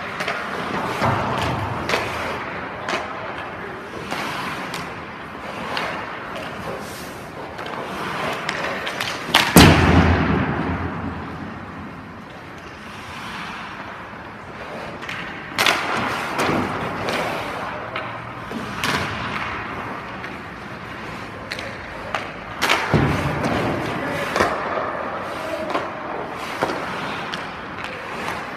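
Hockey goalie practice on ice: skate blades scraping the ice, with scattered sharp knocks and thuds. The heaviest thud comes about a third of the way in, and two more strong knocks follow later.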